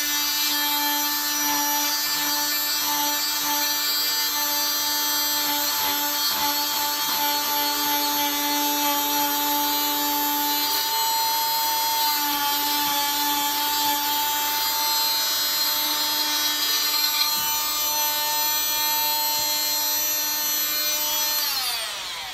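Electric oscillating cast saw running with a steady high whine as its blade cuts through the fiberglass of a total contact cast. Near the end it is switched off and its pitch falls as it winds down.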